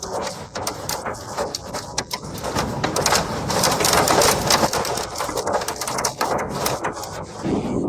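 Hailstones pelting hard surfaces in a heavy hailstorm: a dense clatter of many sharp impacts over a hiss of falling precipitation, heaviest around the middle.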